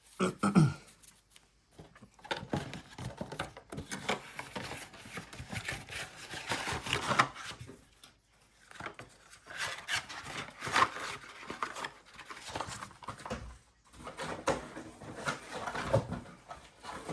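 Trading cards and their packs being handled: irregular rustling, sliding and light clicks as cards are flipped through, with brief pauses twice.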